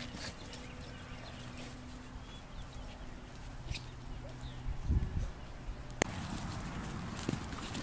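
Faint sounds of dogs playing at a distance on grass, with no clear barks; a low bump about five seconds in and a sharp click about a second later.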